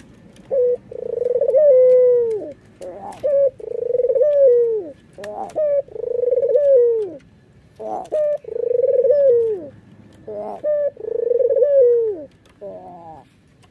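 White red-eyed Barbary dove (domestic ringneck dove, 'puter') cooing. Five calls, each a short note and then a long held coo that drops in pitch at its end, come about every two and a half seconds. A quick run of short notes follows near the end.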